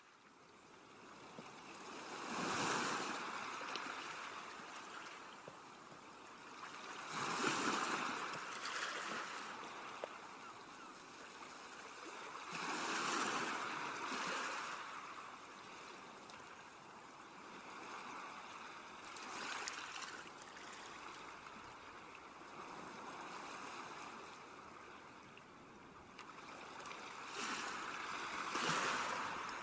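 Sea waves washing onto a shore: a constant hiss of surf that swells into a louder wash about every five or six seconds and then ebbs away.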